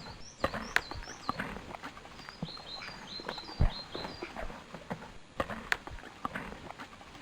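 Outdoor animal ambience. Short high bird chirps repeat, each falling in pitch, most of them in the first half. Under them come scattered, irregular knocks and thuds.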